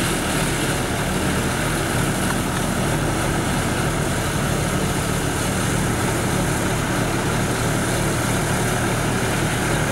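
Engine of a mobile boat hoist running steadily as the lift holds a sailing yacht in its slings, an even low hum with no change in speed.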